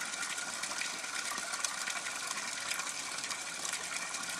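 Steady gushing and splashing of water in an aquaponics flood-and-drain bed: the pump's inflow keeps running into the bed while the bell siphon has started draining it.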